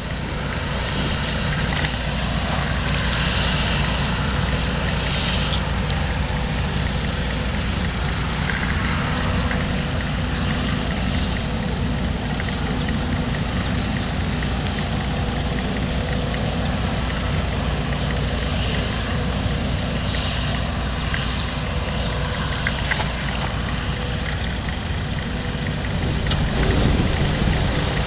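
Claas Lexion 770 combine harvester running steadily at work in wheat, its engine drone mixed with the rush of the threshing and a thin steady whine, swelling slightly near the end.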